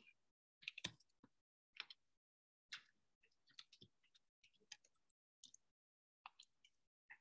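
Near silence broken by faint, irregular clicks and taps, a dozen or so short sounds with dead gaps between them.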